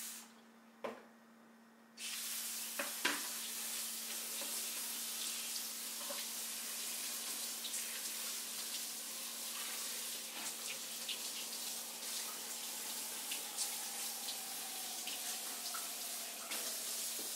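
Kitchen faucet turned on about two seconds in and running steadily into the sink while a plastic colander is rinsed under it, with small knocks as it is handled.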